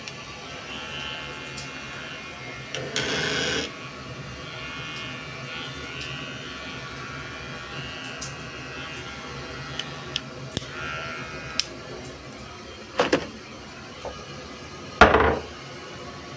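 Delta toilet's tank refilling: the fill valve runs with a steady hiss and a faint wavering whistle. A few short louder bursts of noise break in, one about three seconds in and two near the end.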